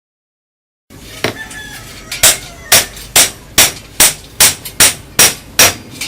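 A hammer striking repeatedly in an even rhythm of about two to three blows a second, each blow sharp with a short ring, following a second of silence.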